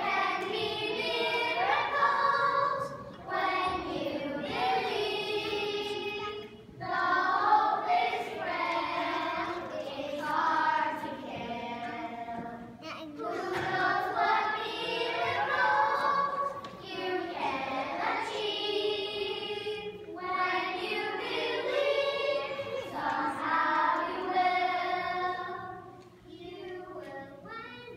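A group of young children singing together as a choir, in phrases with short breaks between them. The singing eases off near the end.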